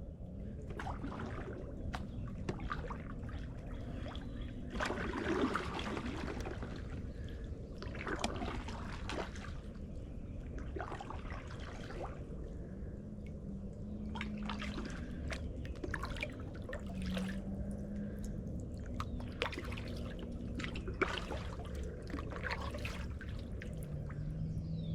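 Kayak paddle dipping into creek water, with splashes and trickling drips from the blades at irregular strokes every few seconds, over a steady low rumble.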